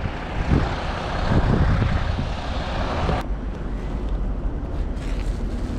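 City street traffic in deep snow: a vehicle's engine rumbles and its tyres hiss on the slushy road. The hiss cuts off suddenly about three seconds in, leaving the low rumble.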